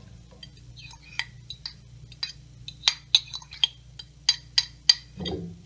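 Metal fork scraping and tapping against a ceramic bowl as beaten egg is scraped out, a string of sharp clinks that are loudest in the second half.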